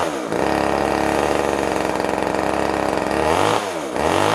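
Two-stroke chainsaw engine running at steady high revs, then from about three seconds in its pitch repeatedly dips and climbs again as the throttle is blipped.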